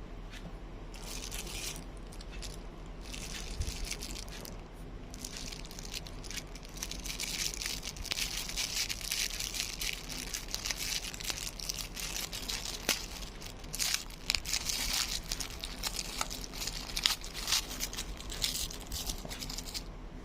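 Crinkling and rustling of packaging being handled and pulled at, in irregular bursts with scattered sharp clicks, busier in the second half, over a faint steady low hum.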